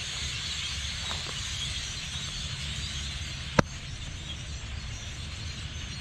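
Steady outdoor background hiss over a low rumble, with one sharp click about three and a half seconds in.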